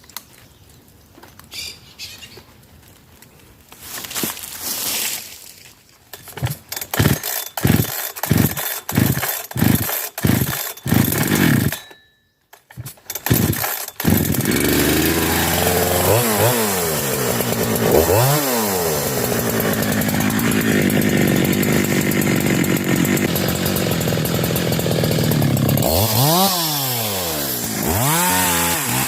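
A 372 two-stroke chainsaw being pull-started: about eight quick pulls on the starter cord, then the engine catches about halfway through and runs, revved up and down several times.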